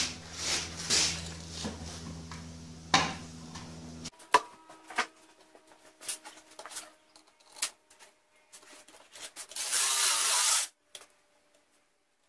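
Metal clinks, knocks and rattles of steel tubing and tools being handled and clamped in a drill-driven tube notcher. A steady hum underneath cuts off suddenly about four seconds in, and near the end a loud hiss lasts about a second.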